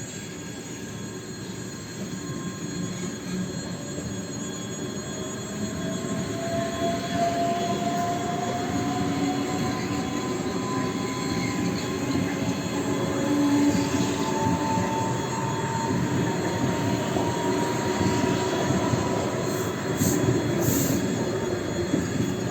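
EG2Tv Ivolga electric train running on the rails, its rumble building over the first several seconds, with an electric whine that rises steadily in pitch as the train picks up speed. A few brief clicks sound near the end.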